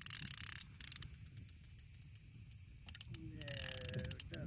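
Fishing reel ratcheting with uneven runs of fast clicks while a hooked sturgeon is played on the line.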